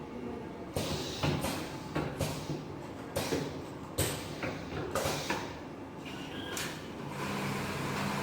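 Automatic curtain pinch-pleating machine at work: a run of sharp mechanical clacks and knocks, unevenly spaced about half a second to a second apart, then a steady machine hum from about seven seconds in.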